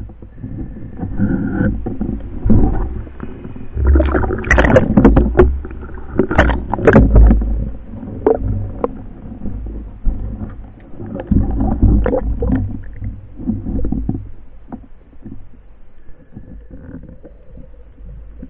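Underwater water noise on a speargun-mounted camera: rumbling water rushes and gurgles, with scattered knocks, as the diver moves through the water. The surges are loudest and most frequent in the middle, then ease off.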